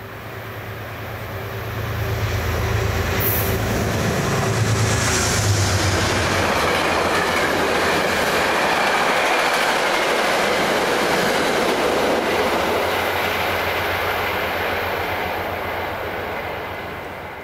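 Metro-North passenger train passing through the station: a low locomotive drone in the first few seconds, then the coaches' steady wheel-on-rail noise, swelling and then fading away near the end.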